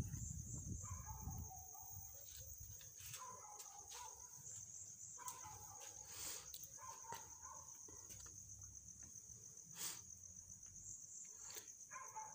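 Faint, steady chirping of crickets, with a few short, faint animal calls from farther off and an occasional light tick.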